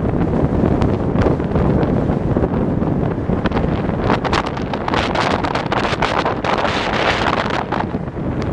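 Strong typhoon wind buffeting the microphone in a loud, rough rush, with a run of sharp crackling clicks in the middle.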